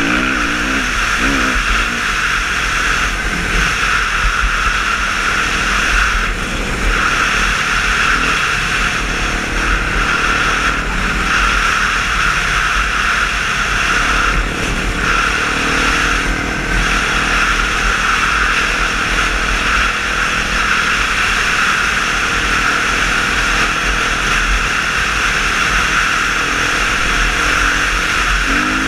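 Off-road motorcycle engine running under way with steady rushing wind noise, recorded by a helmet-mounted action camera. The engine note wavers, and the sound dips briefly a few times.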